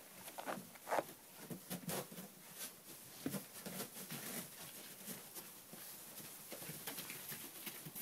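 Malamute puppies scampering about in wood shavings on a wooden deck: faint, irregular pattering and rustling of paws and claws, with a few short, soft puppy vocal sounds in the first couple of seconds.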